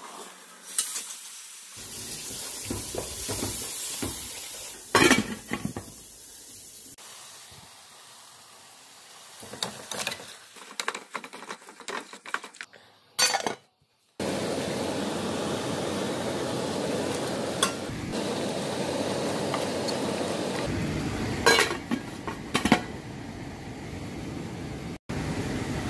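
Wooden spoon stirring and scraping onions and spice paste around an aluminium pan as the masala sizzles, with a few sharp knocks of the spoon against the pan. About halfway through the sound changes to a steady rushing noise, broken by a few clinks of a metal pot lid.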